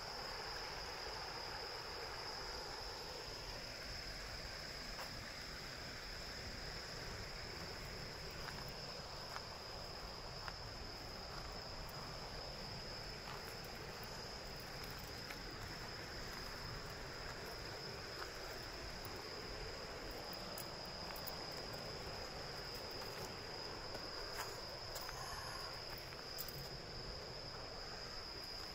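Insects shrilling in one steady high-pitched tone, over the steady rush of a shallow river running over stones.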